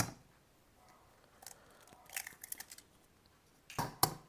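Eggs being cracked: a sharp knock at the start and two more close together near the end, with faint shell crackling in between.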